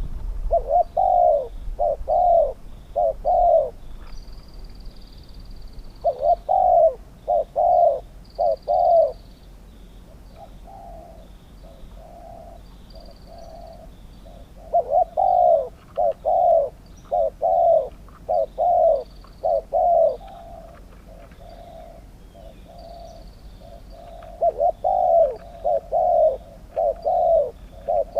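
Spotted doves cooing in repeated phrases of three to five loud coos, four groups in all, with softer coos in between. Small birds chirp faintly in the background.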